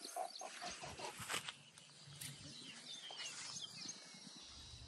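A bird calling: a quick run of short notes, then a few brief chirps about three seconds in. Under it, soft rustling and light knocks in the grass as a hooked tilapia is landed on the bank.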